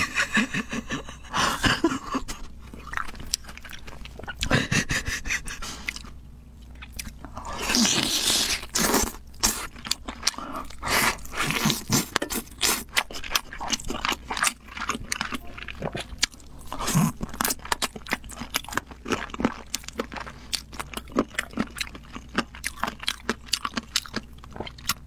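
Close-miked eating of spicy stir-fried Buldak chicken drumsticks: biting, tearing and chewing the saucy meat, a dense run of short crunchy clicks and mouth sounds.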